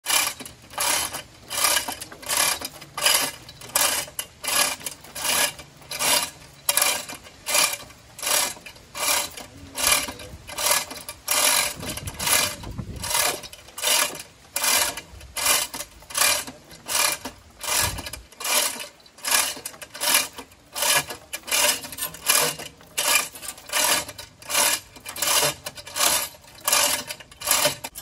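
Manual chain block being hauled hand over hand to lift a large log: the hand chain rattles and rasps through the hoist in even strokes, about two a second.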